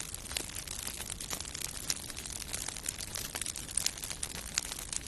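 Fire crackling: a steady hiss full of small, sharp pops and snaps.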